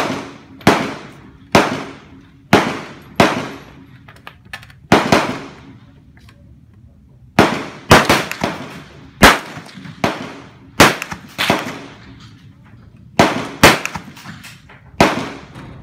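Gunshots on an outdoor shooting range: a dozen or more sharp rifle-range shots, irregularly spaced and sometimes less than a second apart, from several shooters on the firing line. Each shot trails off in an echo.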